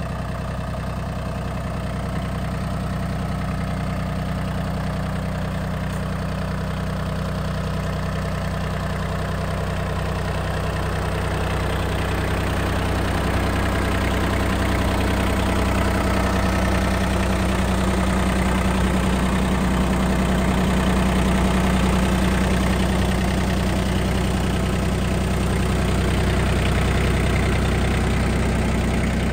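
Iseki Sial Hunter 18S compact tractor's diesel engine idling steadily, a little louder from about halfway through.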